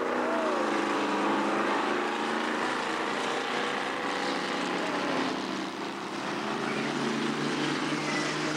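Engines of several sedan race cars running on a dirt speedway track, a continuous drone whose pitch rises and falls as the cars go through a bend.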